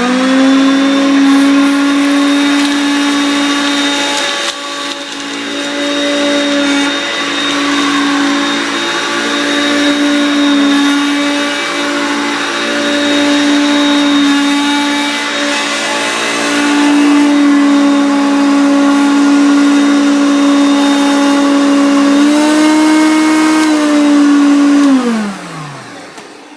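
Eureka upright vacuum cleaner switched on: the motor spins up to a steady whine and runs. About 22 seconds in its speed steps up slightly. Near the end it is switched off and winds down.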